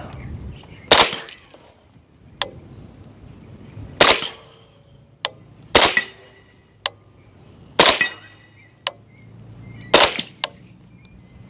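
Five suppressed shots from a 300 Blackout rifle firing 220-grain subsonic rounds, about two seconds apart, with fainter sharp strikes in between from the bullets hitting the steel swinger targets.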